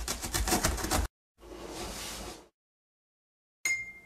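Cartoon sound effects for an animated logo intro. First comes a rattling burst of rapid clicks lasting about a second, then a whoosh, then a short bright ping near the end.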